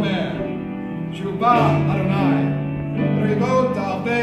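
A worship song in a synagogue service: voices singing a melody over instrumental accompaniment.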